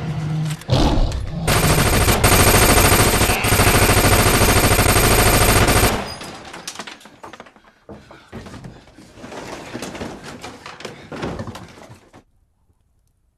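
Automatic gunfire on a film soundtrack: a loud, continuous stretch of rapid fire lasting about four seconds, which then drops away to quieter scattered noises and cuts off to silence near the end.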